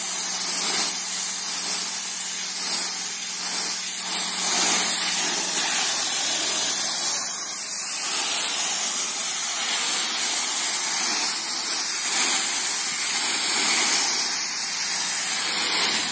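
Pressure washer jet spraying onto a wet concrete floor: a steady hiss of water as the lance sweeps the grime off the surface, with a faint steady low hum underneath.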